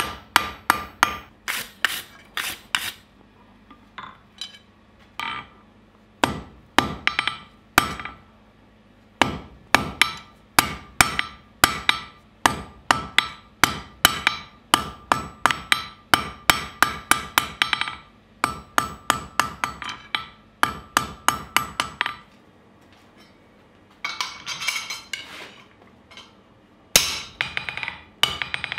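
Hand hammer striking red-hot steel on an anvil while forging: runs of ringing blows at about three a second, broken by short pauses. Near the end comes a quicker run of lighter taps.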